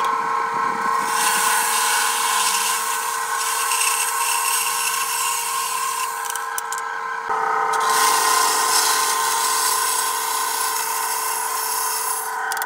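Vertical band saw running with its blade cutting into a brass bushing: a steady whine over a hissing cutting noise. The sound changes abruptly about seven seconds in.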